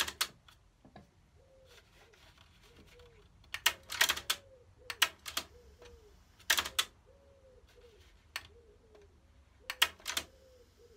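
Sharp mechanical clicks and clunks from a NAD 602 cassette deck as its front-panel transport buttons are pressed and its mechanism engages, coming singly and in short clusters, loudest about four seconds in and near the end.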